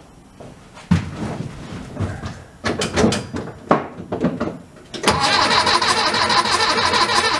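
1964 VW Beetle's 1500cc air-cooled flat-four being cranked by its starter with uneven strokes for about four seconds, then catching about five seconds in and running steadily.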